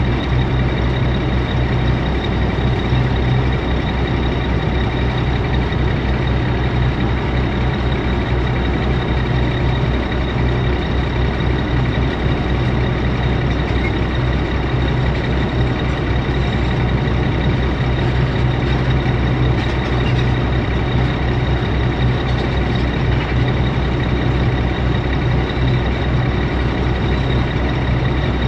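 Heavy diesel engines running steadily: a constant low drone with a faint steady high whine above it.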